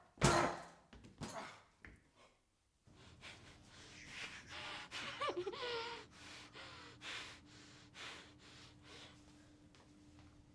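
A frightened woman gasping and breathing hard with a hand clamped over her mouth. Her breaths come as a run of short rushes, and about five seconds in there is one muffled whimper that slides down in pitch.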